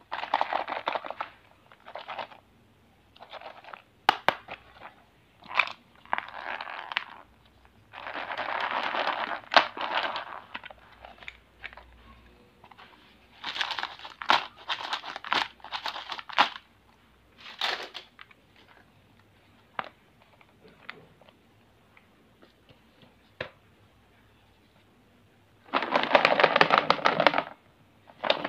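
Hands handling plastic-wrapped candy packets and hard plastic stationery boxes: bursts of wrapper crinkling, the longest and loudest near the end, broken by sharp clicks and snaps of plastic lids and catches.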